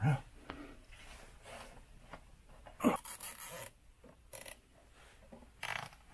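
Plastic cable ties being pulled tight around wiring, giving several short ratcheting zips, with a sharp click a little before three seconds in, amid rubbing and scraping of hands on wires and metal.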